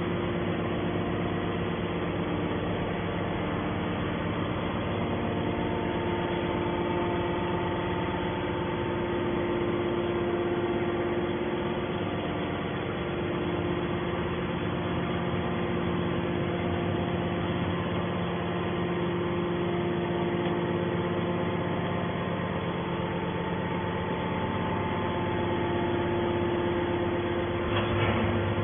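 Metal scrap baler running: a steady machine hum with several held tones.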